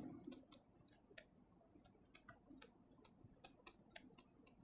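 Near silence with faint, irregular small clicks, about three or four a second.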